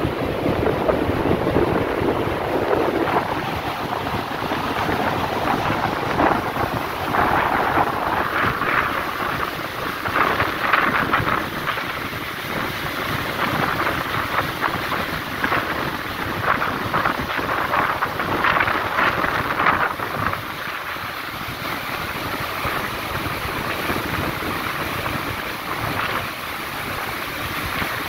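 Churning wake behind a ship's stern, the water rushing and foaming with an uneven surge, with wind blowing on the microphone.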